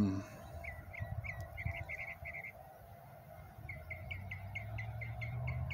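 A small songbird singing two runs of quick, hooked chirps, about five or six a second. A low vehicle engine hum comes up in the second half and rises in pitch near the end.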